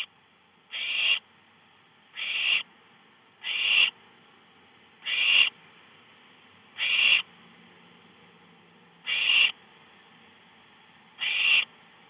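Barn owl nestlings giving their rasping hiss, the 'snore' food-begging call, repeated about every one and a half to two seconds. Each hiss swells and then cuts off sharply.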